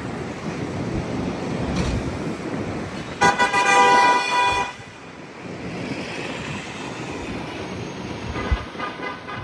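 NYC subway train running with a steady rumble, and a loud horn blast of about a second and a half a little over three seconds in. The rumble is quieter after the horn, with a thump and a fainter tone near the end.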